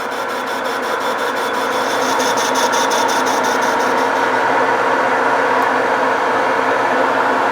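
Metal lathe running while a boring bar cuts the inside of a cast pulley's bore: a steady machining noise with an even motor hum, growing slightly louder through the cut.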